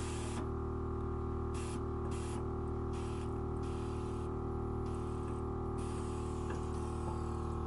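Accuair air suspension on a VW Golf GTI: the valves hiss in about seven short bursts, one longer one near the middle, as the car is raised and lowered from the phone app, over a steady mechanical hum.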